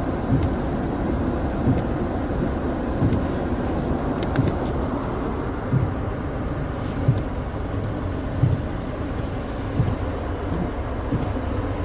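Steady road and engine rumble inside a car's cabin as it drives on a snowy road, with a soft low thump every second or so and a few faint clicks about four seconds in.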